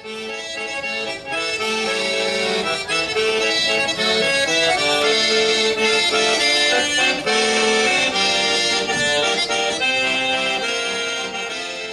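Accordion music: a melody played over held chords.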